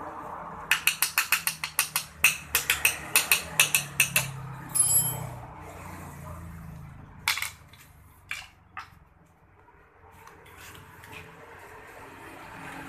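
A metal hand tool tapping quickly on a Honda Spacy 110 scooter engine while its cylinder head is being freed: a run of about twenty sharp metallic strikes, about five or six a second, for some three seconds. A metal part then clinks and rings briefly, followed by three single knocks.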